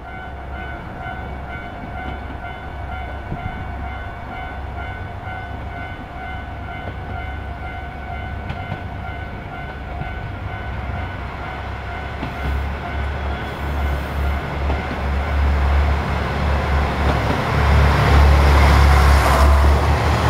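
JR Shikoku 1200-series diesel railcar approaching and passing close by. Its engine rumble builds through the second half and is loudest as it goes by near the end. A steady high ringing tone with several overtones sounds through the first half and fades out.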